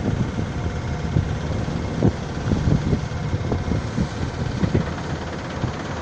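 Wind buffeting the microphone in irregular gusts over the steady rush of the sea along a sailing ship's hull, heard on open deck under way.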